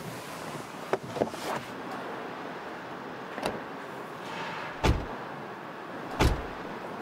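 Two doors of a black Mercedes SUV slamming shut, each a heavy thud, about five and six seconds in, after a few lighter clicks.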